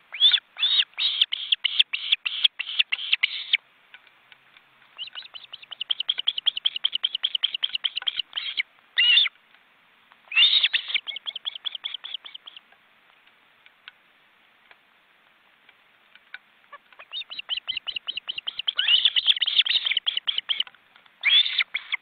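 Ospreys calling at the nest: fast runs of high, sharp chirped whistles, repeated several times a second. They come in about half a dozen bouts of a few seconds each, with short pauses between, including a lull of about four seconds in the middle.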